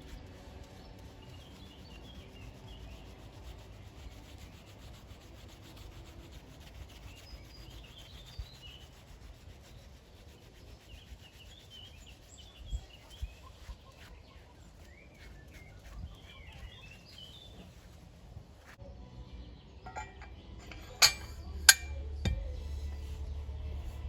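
Soft rubbing or scrubbing with birds chirping in the background, and two sharp knocks in quick succession about three-quarters of the way through.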